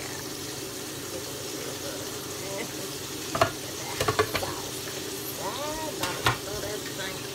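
Hot oil sizzling steadily in a frying pan, with metal tongs clicking and clattering against the pan a few times in the middle and again near the end.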